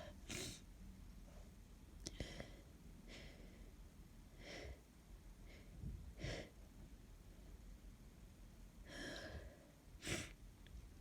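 A person with a snotty head cold sniffling and breathing through a blocked nose: about seven short, separate sniffs and breaths, quiet, the strongest about two, six and ten seconds in.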